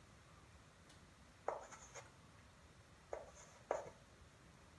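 Chalk writing numbers on a blackboard: three sharp taps with short scratches, about one and a half seconds in and then twice close together past the three-second mark, as digits are stroked onto the board.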